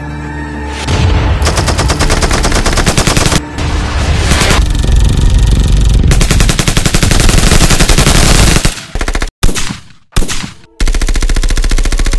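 Heavy automatic gunfire: a dense, rapid stream of shots starting about a second in, with brief breaks, several quick stops and restarts near the end, then cutting off abruptly.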